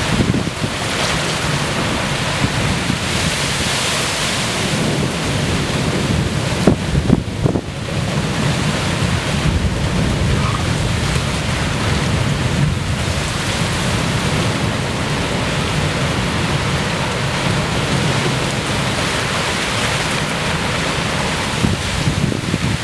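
Heavy thunderstorm rain pouring steadily, with wind rumbling on the microphone. A few sharp knocks about seven seconds in.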